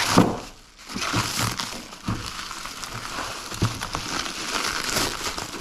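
Plastic bubble wrap crinkling continuously as it is pulled open and unwrapped by hand.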